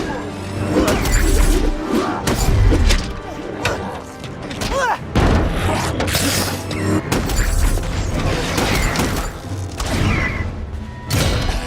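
Action-film soundtrack: a loud orchestral score mixed with repeated explosions, crashes and shattering impacts.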